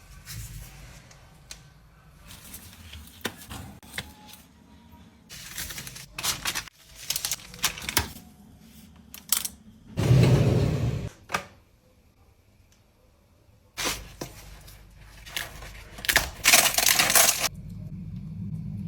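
Kitchen handling sounds: scattered clicks and taps, with several short crackling, rustling bursts. The loudest comes about ten seconds in and another near the end.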